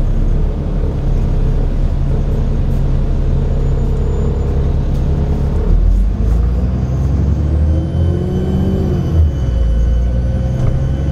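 Cummins Euro 4 diesel engine of an Enviro 400 double-decker bus running. In the second half a thin, high turbocharger whistle rises and then holds, along with a whine that climbs in pitch.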